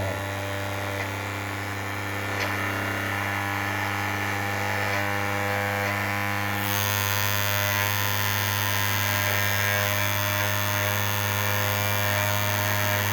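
3D-printed magnet rotor of a Hall-sensor pulse motor spinning on its maglev bearing, a steady hum with a high whine over it, running smoothly now that the shaft end is dry-lubed. About seven seconds in the upper whine turns brighter and the sound grows slightly louder.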